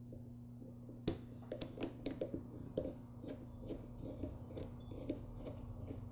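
Small irregular metal clicks and scrapes of a flat screwdriver unscrewing a lawn mower carburetor's main jet, with a pick pressed against the jet's threads in the carburetor body, starting about a second in. A steady low hum runs underneath.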